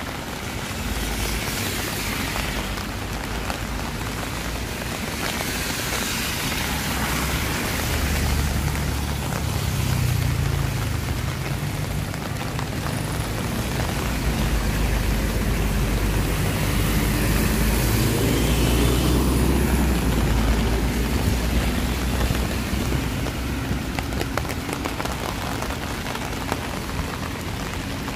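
Rain falling steadily while road traffic passes. A low engine rumble builds about a second in, is heaviest through the middle, and fades near the end.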